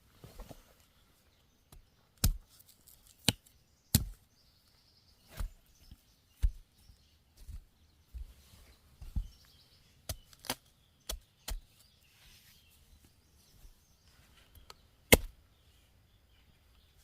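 A series of irregular sharp knocks and clicks, roughly one a second, some with a dull thud beneath; the loudest comes near the end.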